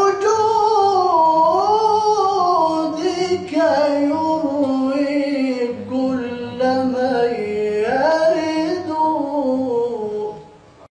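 A man's solo voice chanting an Islamic devotional ibtihal, with no instruments. The long melismatic phrases glide up and down in pitch and pause briefly between them, and the last phrase trails off near the end.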